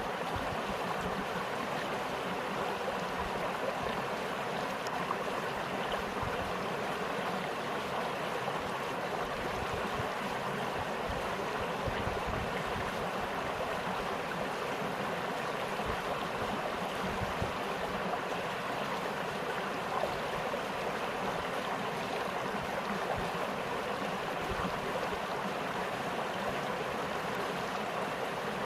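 Small spring stream flowing steadily, with an even babbling rush of water.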